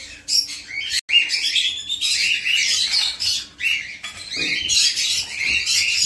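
A flock of caged pet parrots, cockatiels and lovebirds, chirping and squawking many at once in a dense, continuous chatter, keyed up at feeding time.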